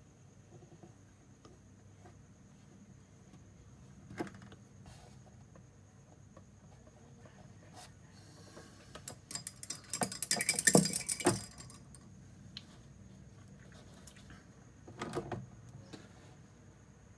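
Small hard objects handled on a wooden tabletop. There is a soft knock early on, then about two seconds of quick clicking and rattling a little past the middle, which is the loudest part, and another short knock near the end. A faint steady high whine sits under it all.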